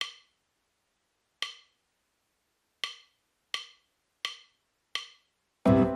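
Six short, sharp wood-block-like click sound effects, the first two about a second and a half apart and the rest quicker, each dying away at once. Acoustic guitar music starts near the end.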